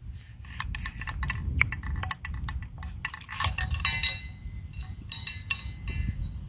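A drink container being handled, with a run of sharp clinks and crackles, some ringing briefly, as she gets her water out. A low wind rumble on the microphone runs underneath.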